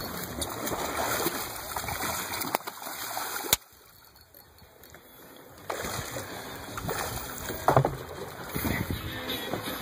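Water splashing and sloshing at the side of a boat as a fish is scooped up in a landing net. After a click about three and a half seconds in, the sound drops nearly away for about two seconds, then the splashing returns with a sharp louder splash near the end as the net comes up with the fish.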